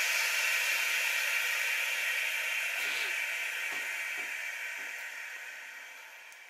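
Witschi ALC 2000 watch water-resistance tester venting its pressure chamber: a steady hiss of escaping air that fades away as the pressure drops to nearly nothing.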